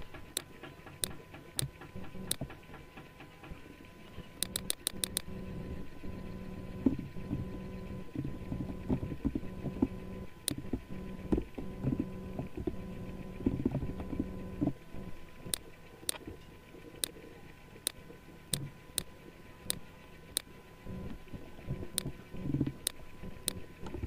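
Computer mouse clicks and keyboard typing: single sharp clicks spaced about a second apart, a quick run of about six clicks a few seconds in, and a denser stretch of duller keystrokes through the middle, over a faint steady hum.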